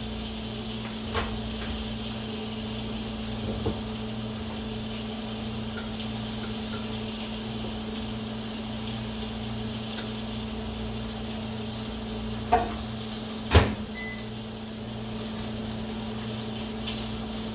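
Chicken sizzling steadily in a frying pan on the stovetop, over the low steady hum of a running microwave oven, with a few light knocks of tongs or utensils against the pan, the loudest about 13.5 seconds in.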